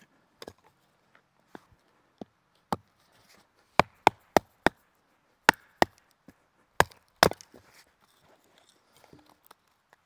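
Gransfors Bruks Small Forest Axe splitting kindling held upright on a rock: a dozen or so sharp wooden chops at an uneven pace, the hardest blows bunched in the middle.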